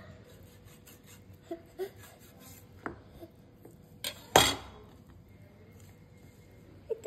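Chef's knife cutting raw chicken on a wooden cutting board: a few sharp knocks of the blade against the board, the loudest pair about four seconds in.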